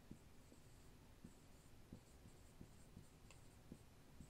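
Dry-erase marker writing on a whiteboard: faint, irregular taps and light squeaks as letters are written out.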